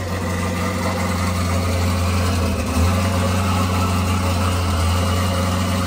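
Engine-swapped C8 Corvette idling with a deep, steady note, with a short bump in level about three seconds in.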